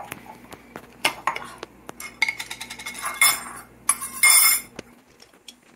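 Kitchen handling sounds: a glass jar and its lid being opened and set down on a stone countertop, and wooden chopsticks being picked up. A series of sharp clicks and clinks, with two short scraping sounds about three and four seconds in.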